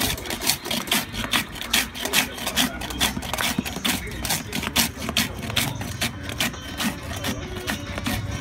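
Hand-held metal ice shaver scraped again and again down a block of ice, a steady run of rasping strokes at about three a second, shaving ice for raspados.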